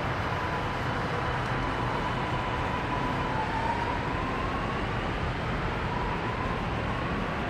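Alstom Metropolis metro train pulling away from the platform: steady rolling rumble with a thin electric whine that dips slightly partway through, then climbs in pitch as the train speeds up.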